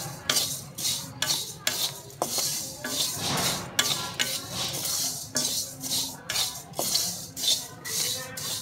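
A wooden spatula stirs fennel seeds dry-roasting in an iron kadhai. The seeds rustle and the spatula scrapes across the iron in rhythmic strokes, about two a second.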